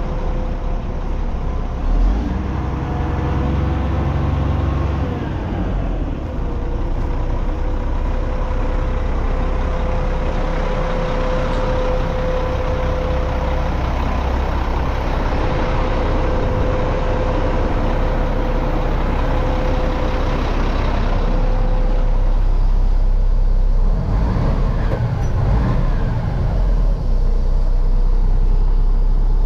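1999 Mack concrete mixer truck's diesel engine idling steadily. A steady whine sits over it and fades out about two-thirds of the way in.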